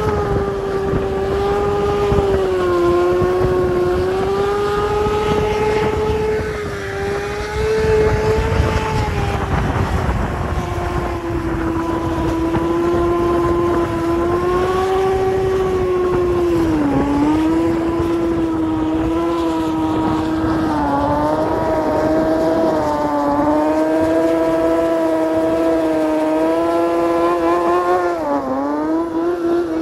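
Sport bike engine held at high revs through a long rolling burnout, with the front brake held and the rear tyre spinning and smoking. The pitch stays nearly steady, with short dips in revs about halfway through and just before the end.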